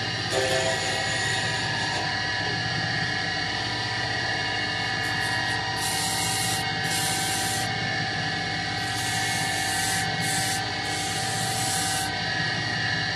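A wood-turning copy lathe runs steadily with a motor hum and whine. Sandpaper pressed against the spinning wooden balls hisses in several spells of a second or so, mostly in the second half.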